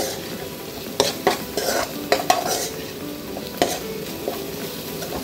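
Metal spatula stirring onion and green chilli–coconut paste frying in oil in a kadhai: a steady sizzle with sharp scrapes and taps of the spatula against the pan at irregular moments, about one a second.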